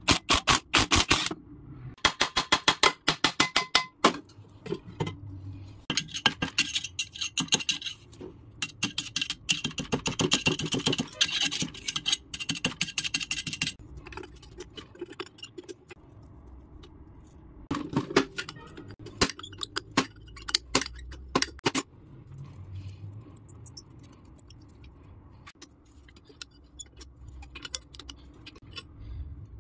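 Cordless impact wrench hammering in several short bursts as it loosens the bolts on a rusty electric pump motor's end housing. In the second half come quieter metal clicks, clinks and scrapes as a hand spanner turns the bolts.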